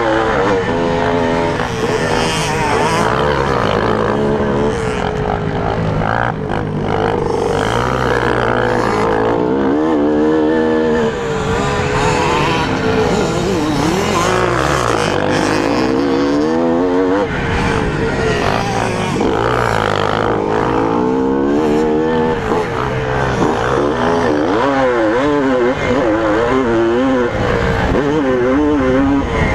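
1981 Suzuki RM250's two-stroke single-cylinder engine under load on a dirt track, revving up and dropping back again and again as the throttle is worked through turns and straights.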